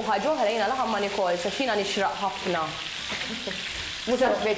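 Food sizzling in a frying pan, a steady hiss, with a voice talking over it for the first three seconds or so and again near the end.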